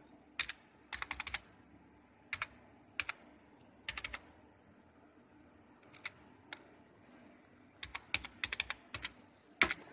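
Computer keyboard keys clicking as a web address is typed, in short irregular bursts of keystrokes with pauses between them, the sharpest click coming near the end.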